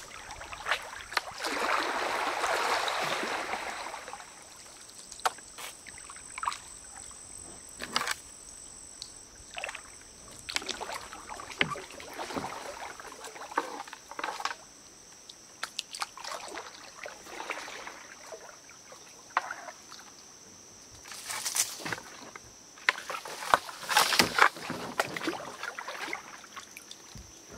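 Kayak paddle strokes: water swishing and splashing beside the hull every few seconds, loudest about a second in, with scattered sharp knocks and clicks.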